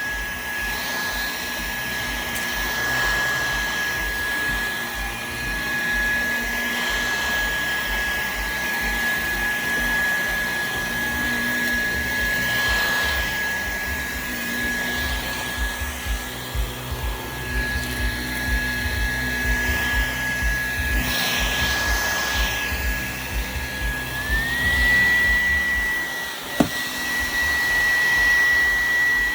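Dyson vacuum cleaner running on carpet: a steady high motor whine over the rush of suction, with a shifting low rumble as the head moves. About 24 seconds in the whine steps up in pitch and holds there, and a single sharp click comes shortly after.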